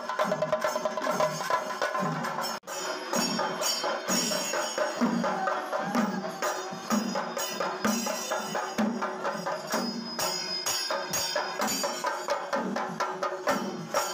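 Kerala chenda melam: chenda drums beaten with sticks in a fast, steady rhythm, with the ringing of elathalam hand cymbals over it. The sound drops out suddenly for a moment about two and a half seconds in.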